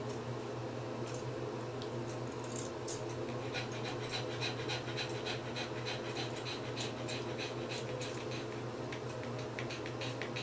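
Dog panting in quick, even breaths, starting a few seconds in, over a steady low hum.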